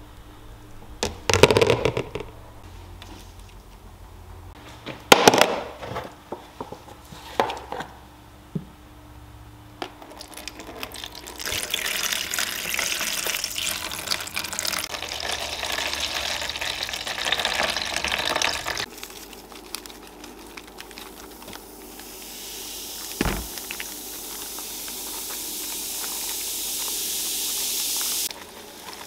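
A rusty steel drawing compass clinks and knocks against a plastic tub several times. Clear liquid is then poured into the tub for about eight seconds. Later a hissing fizz grows steadily louder, the bubbling of a vinegar and baking-soda rust-removal bath.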